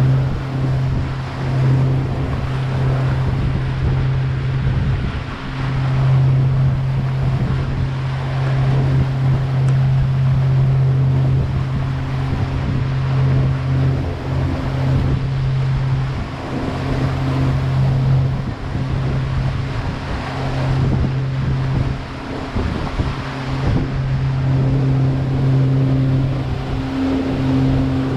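River water taxi's engine running steadily underway, a constant low hum, with the rush of water and wind around the boat.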